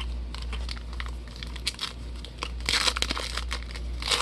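Trading card pack wrappers crinkling and tearing as packs are handled and opened, in irregular crackles that bunch together about three seconds in and again near the end.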